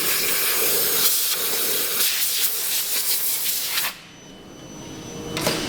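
A strong, steady hiss of rushing air or gas that cuts off sharply about four seconds in and starts again shortly before the end.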